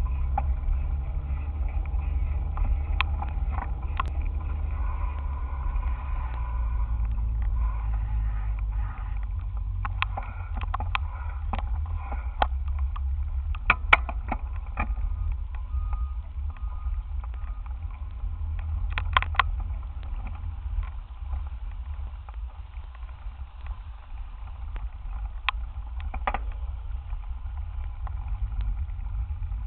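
Steady low rumble of wind and road vibration on the microphone of a camera mounted on a moving bicycle's handlebars, with scattered sharp clicks and rattles as the bike goes over bumps.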